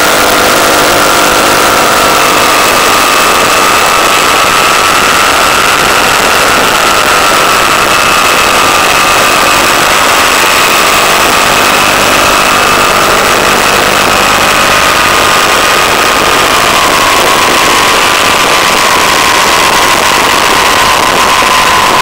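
Onboard audio of an electric RC glider in flight: a steady motor-and-propeller whine that slowly drops in pitch, over a loud, constant rush of air.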